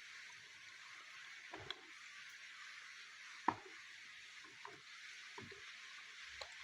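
Steady hiss of rain, with a handful of separate sharp clicks from pieces of dry clay, the loudest about three and a half seconds in.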